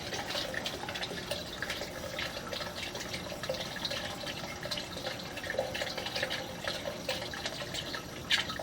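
Water trickling and dripping, with a constant run of small irregular splashes.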